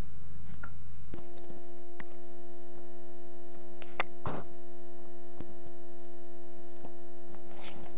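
Steady electrical mains hum: a low drone that changes about a second in to a buzz of several steady tones, with a few faint clicks.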